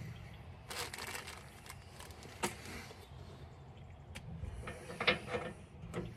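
Greased outer wheel bearing being worked onto a rock picker's wheel hub by hand: faint rustling of its plastic wrap at first, then scattered small metal clicks and knocks as it seats, the loudest about halfway through and again near five seconds in.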